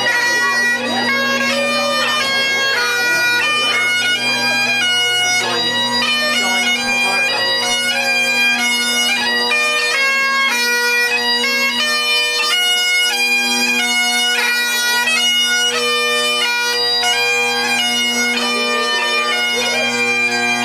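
Bagpipes playing a marching tune: a melody stepping from note to note over steady, unbroken drones.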